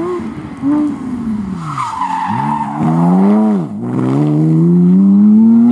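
Porsche 911 rally car's flat-six engine braking into a junction, its pitch falling, with a short tyre squeal about two seconds in. It then accelerates hard away, with a sharp gearshift drop near the middle and a long rising pull.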